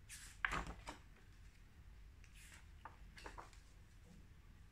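Pages of a hardcover picture book being turned by hand: a paper swish with a light slap about half a second in, then a few softer paper rustles.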